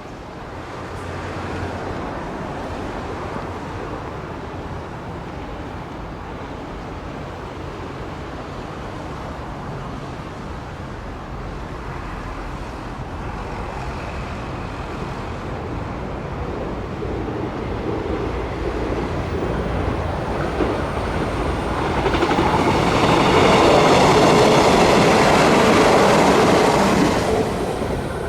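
A train approaching on the line and passing close by, its rumble building gradually and loudest for the last several seconds, then dropping away quickly near the end.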